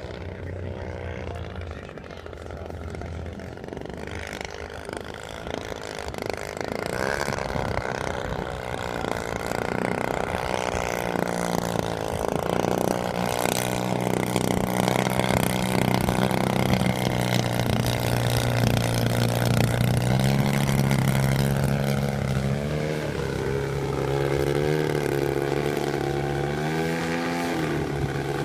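Engine of a half-scale radio-controlled aerobatic airplane in flight, growing louder over the first half as the plane comes closer. Its pitch shifts up and down in steps, with several quick rising and falling swoops near the end.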